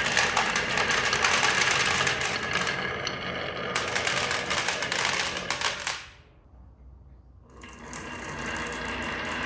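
Marbles rolling and clattering along a wooden and plastic marble run, a dense rapid rattle of small clicks. It fades out suddenly about six seconds in, then starts up again about a second and a half later.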